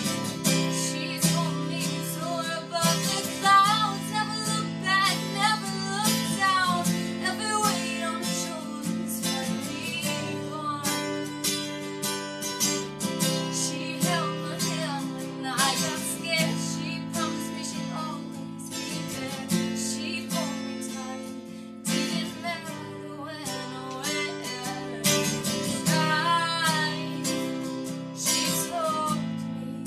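A woman singing with her own strummed acoustic guitar, the voice coming in phrases over steady chords.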